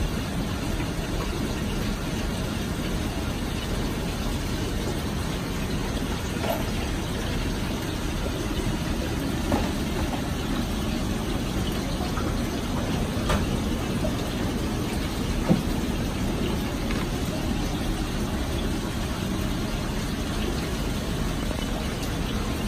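Aquarium aeration: a steady low rush of air bubbling up from air stones through the tank water, with a few faint pops now and then.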